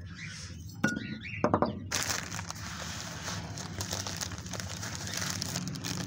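Thin plastic bag of bird seed crinkling steadily as it is handled and tipped to pour seed into a clay dish, starting about two seconds in. A few light knocks come before it.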